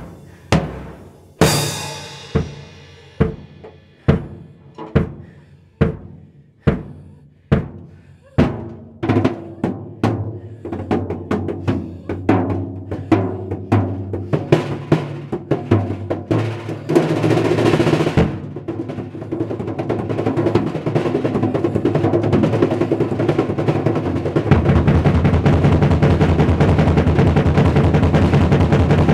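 Drum kit solo: single hits about once a second with a cymbal crash near the start, speeding up steadily into fast rolls. The second half is played with bare hands on the drum heads, ending in a dense, continuous hand roll that gets louder near the end.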